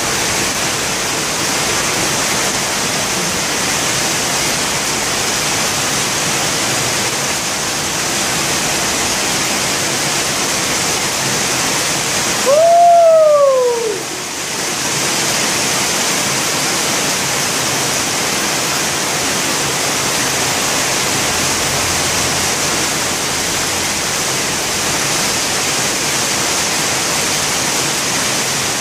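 Heavy rain pouring down steadily, a dense even hiss. About halfway through, a brief louder pitched sound rises and then falls in pitch.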